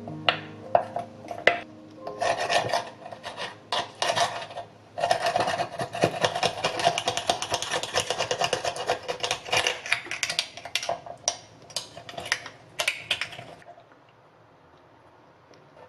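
Metal spoon scraping inside an abalone shell as the meat is pried loose: a few sharp knocks at first, then rapid rasping scrapes that stop shortly before the end.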